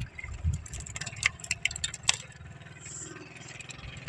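A low, steady engine hum, with a series of sharp knocks, clatter and scraping from line and fish in a wooden outrigger boat.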